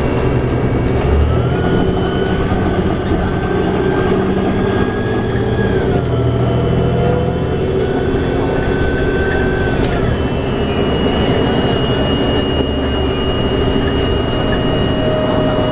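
Inside a 2011 New Flyer D60LFR articulated diesel bus cruising on a freeway: the Cummins ISL9 diesel engine and Allison B500R transmission running steadily under road and tyre noise. A whining tone rises and falls, dropping away about ten seconds in, and a steadier high whine carries on after it.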